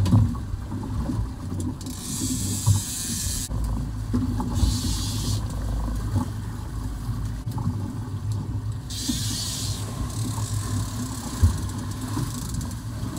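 Small fishing boat's engine running steadily under way in choppy water, with several rushes of hissing wind and water passing over it and a single thump near the end.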